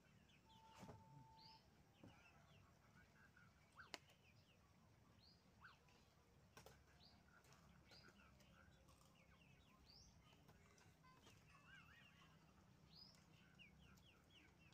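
Near silence, with faint bird chirps scattered throughout and a small click about four seconds in.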